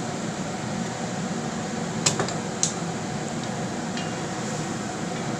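Kitchenware clatter at a stovetop pot: two sharp knocks about two seconds in, half a second apart, over a steady background hum.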